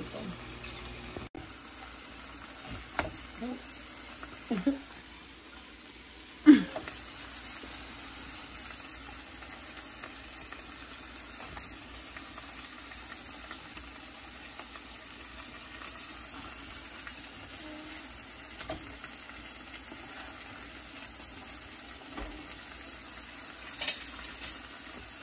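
Chicken breasts sizzling steadily in oil in a skillet with sliced bell peppers and onions. A few sharp knocks of a fork against the pan come through, the loudest about six and a half seconds in.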